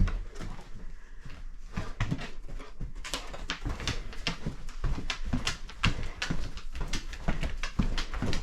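A search dog's quick, noisy breathing as it hunts for odour: rapid short sniffs and pants, several a second, in an uneven run.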